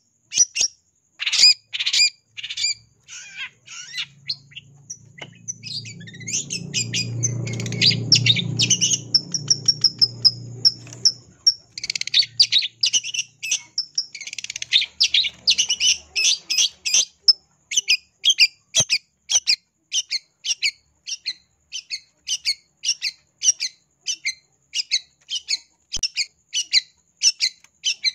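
Long-tailed shrike calling harshly: rapid, clustered chattering notes, then an even run of sharp notes at about two a second from a little past the middle.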